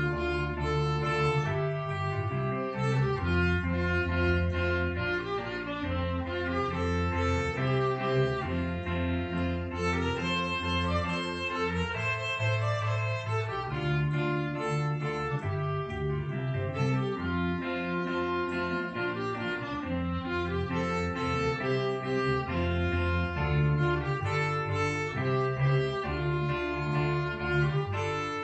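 A string ensemble of violin, cello and double bass playing a hymn arrangement, with sustained bowed notes over a deep bass line that moves every second or two.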